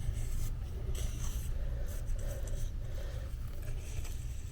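Faint rubbing and scraping of hand work, over a low steady hum.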